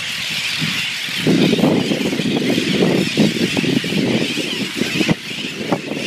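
Seabird colony din: many brown noddies calling in a dense, overlapping chorus of low, harsh croaks that grows louder about a second in, over a steady higher-pitched babble from the massed birds behind.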